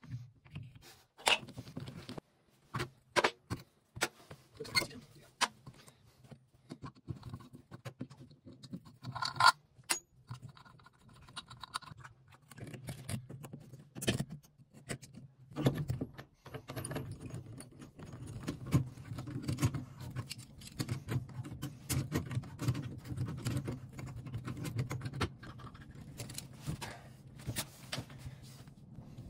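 Clicks, clinks and scrapes of pliers and metal and plastic valve parts as a Moen Posi-Temp shower valve is taken apart and its cartridge pulled. A low steady hum sits underneath from about halfway on.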